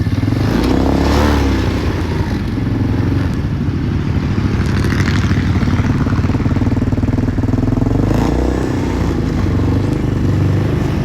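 Small off-road vehicle engine running under way, its pitch rising and falling as the throttle changes, with rattling from the ride.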